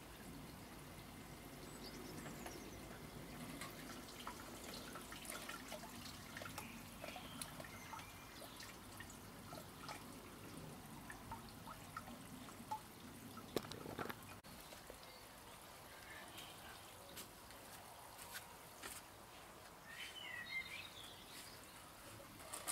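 Faint garden ambience: a low steady background with scattered small clicks and knocks, the loudest a little past the middle, and a few short bird chirps, one clearer near the end.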